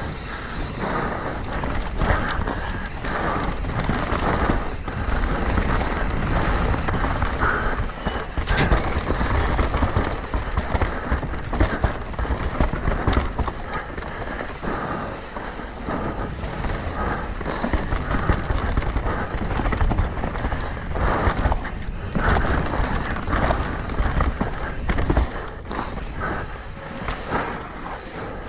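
Mountain bike ridden fast down a rough trail: continuous tyre noise and wind rushing over the microphone, with frequent clattering knocks from the bike over bumps.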